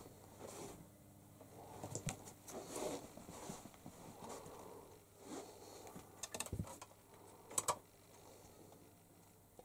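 Faint rustling and scuffing, with soft knocks and a few sharp clicks, from someone moving about a small room with the camera in hand. A cluster of clicks comes about six seconds in, and the two loudest, close together, come about a second later.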